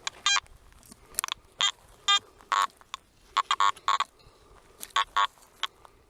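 Garrett AT Max metal detector sounding through its speaker: a string of short, irregular beeps of shifting pitch, about two or three a second, as the coil sweeps. This is the chatter of ground full of chopped-up iron.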